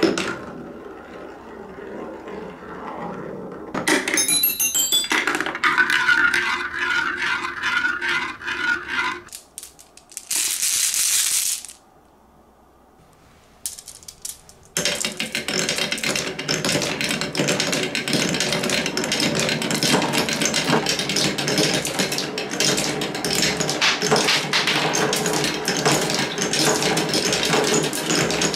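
Marbles rolling and clattering along the wooden and plastic spiral tracks of a Quadrilla marble run. After a near-silent pause about halfway through, many marbles run at once in a dense, continuous clatter.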